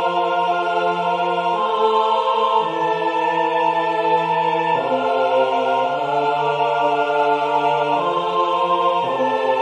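Four-part a cappella choral music at forte: held chords that change every second or two, while one part repeats a quick slurred figure on 'ah'.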